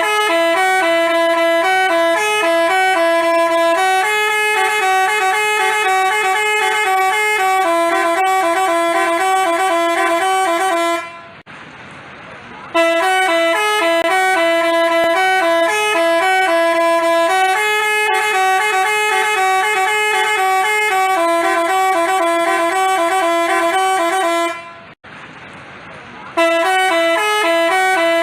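Basuri telolet horn, a multi-tone musical bus horn, playing a melody of stepped notes. It plays in three long phrases broken by two short pauses, about 11 s and 25 s in.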